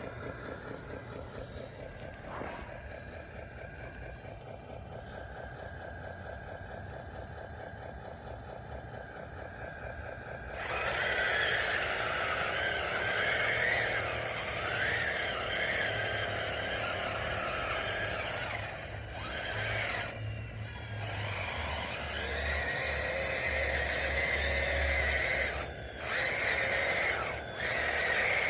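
RC bulldozer running on wide tracks: a thin electric motor whine at first, then about ten seconds in it gets clearly louder, with a whine that wavers up and down in pitch over a scraping, hissy noise as the dozer works. A few brief dips near the end.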